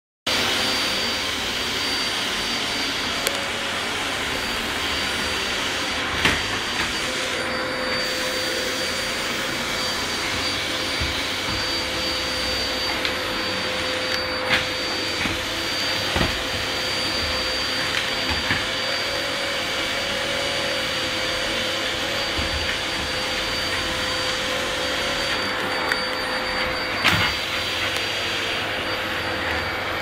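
Vacuum cleaner running steadily with a high whine, its floor nozzle on a rug, with a few sharp knocks now and then.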